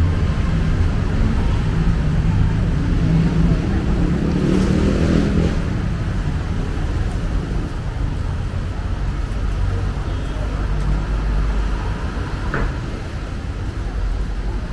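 City street traffic: a steady low rumble of engines and tyres, with one vehicle passing close about four to six seconds in and a brief sharp sound near the end.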